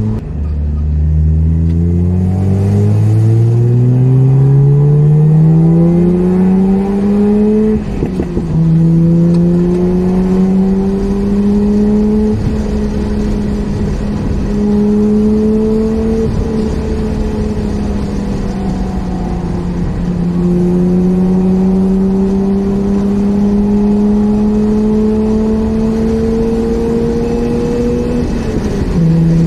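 Mazda RX-8's two-rotor Renesis rotary engine heard from inside the car, pulling hard up through the revs for about eight seconds before its pitch drops at an upshift. It then runs on with slowly climbing revs, eases off for a few seconds past the middle, climbs again and drops at another shift near the end.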